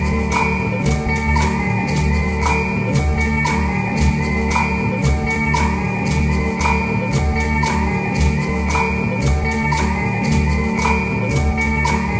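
Background music with a steady beat: a bass pulse and regular bright percussion hits over sustained instrumental tones.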